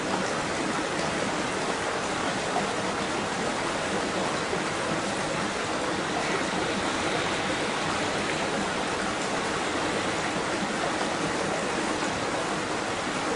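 Flowing water rushing steadily, an even hiss with no swells or breaks.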